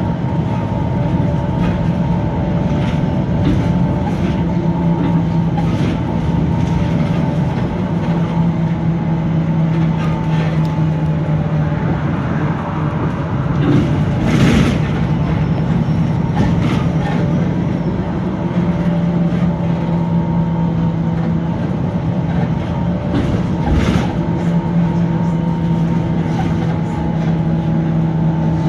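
VDL SB200 single-decker bus with Wright Pulsar 2 body on the move: steady engine and drivetrain drone with a low groaning tone that fades out for a few seconds in the middle and returns. Sharp body rattles now and then, the loudest about halfway through.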